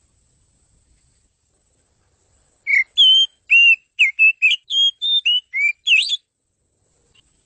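Oriental magpie-robin singing: after a pause of over two seconds, a quick run of about a dozen clear whistled notes, some sliding up or down, ending on a fast rising note.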